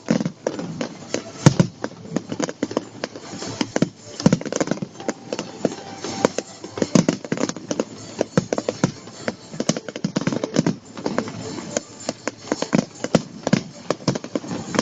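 Fireworks going off in a dense, irregular barrage of pops and bangs, the loudest about a second and a half in.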